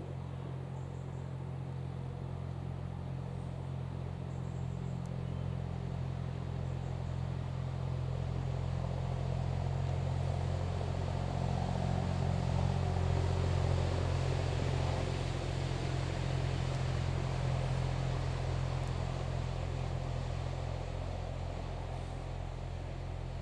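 Waterfall rushing steadily, a continuous deep rumble with a hiss on top, growing slightly louder in the middle.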